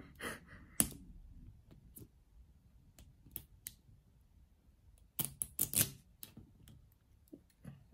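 Small zipper on a toy ball's plastic wrapper being worked open by fingers: scattered clicks and short rasps, a sharp click about a second in and a louder cluster of rasps about five seconds in.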